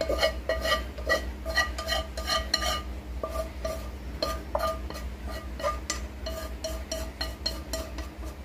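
Wooden chopsticks scraping and knocking against a metal frying pan and an aluminium pot as fried fish pieces are pushed from one into the other: an irregular clatter of two or three knocks a second, each leaving a short metallic ring.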